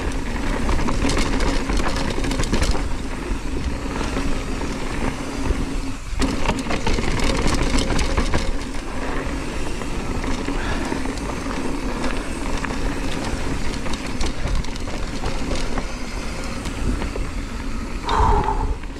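Hardtail mountain bike, an On-One Scandal, riding a dirt singletrack: steady tyre noise on dirt and gravel with many small clicks and rattles from the bike over bumps. A short squeal sounds near the end.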